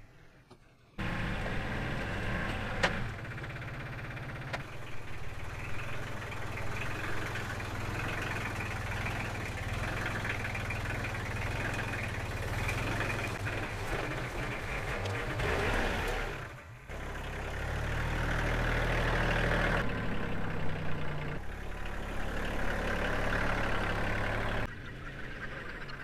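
Mahindra 3510 compact tractor's diesel engine running steadily, the sound changing abruptly twice where the footage is cut, while it handles and carries a round hay bale on its front loader.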